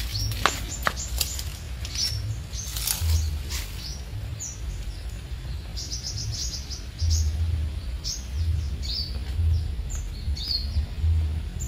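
Small birds chirping, many short high calls scattered throughout, over a low uneven rumble. A few sharp clicks in the first three seconds.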